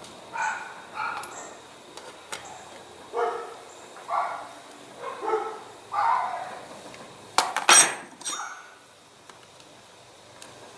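A dog barks about six times, singly and in pairs, then a few sharp metal clinks come about seven and a half seconds in.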